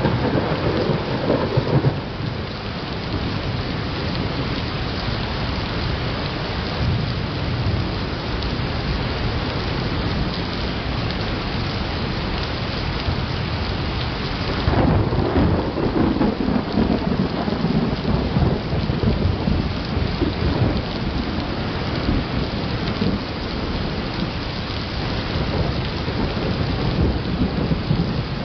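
Steady rain with thunder rumbling through it, the rumble swelling louder about halfway through and staying heavy after.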